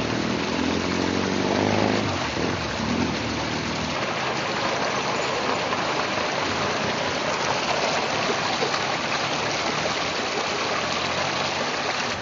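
A vehicle engine running for about the first two seconds over a steady rush of floodwater. After the engine fades, the even rushing and splashing of water through the flooded street carries on.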